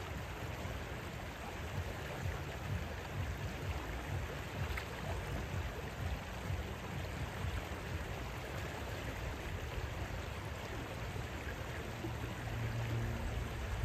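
Shallow rocky stream flowing over stones, a steady rush of water.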